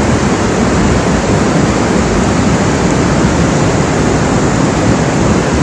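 Steady rush of a river in flood, a wide channel of muddy water in full spate.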